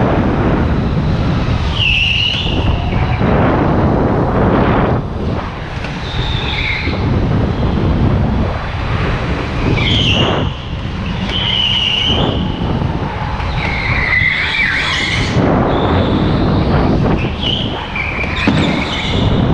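Indoor go-kart at racing speed, heard from onboard: its tyres give short high squeals through the corners, several times, over a steady rush of wind on the microphone and the kart's motor.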